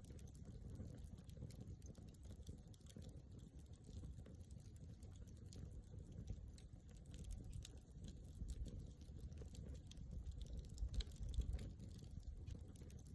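Wood campfire crackling: frequent small, sharp pops and snaps, irregular and continuous, over a low rumble.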